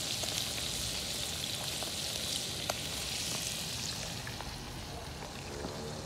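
Hot oil sizzling as fish fries in a steel pan, with scattered small pops and crackles. The sizzle drops off about four seconds in.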